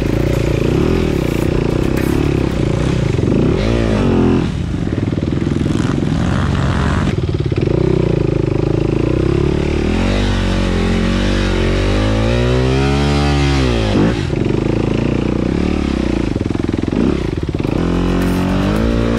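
Dirt bike engine revving up and down under varying throttle, with a long climb and drop in revs about twelve seconds in.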